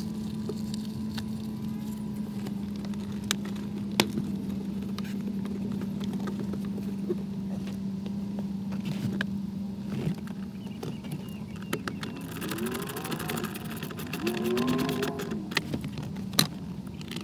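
Car interior trim and hand tools being handled, heard as scattered clicks and knocks over a steady low hum. A quick rapid run of clicks comes about twelve seconds in.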